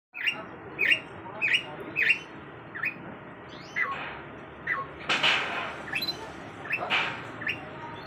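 Caged canary chirping: short sharp chirps repeated about every half second, which turn into downward-sliding notes about halfway through, with two louder, rougher sounds about five and seven seconds in.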